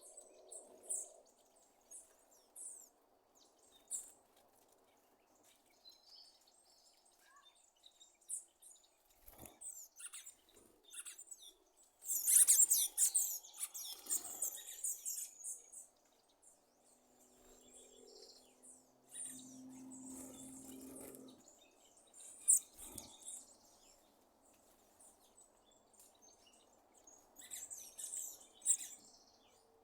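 Sabiá thrush giving short, sharp, high popping clicks, scattered and irregular, like popcorn popping. A dense, loud run of them comes about twelve to fifteen seconds in. A faint low hum sounds for a few seconds after it.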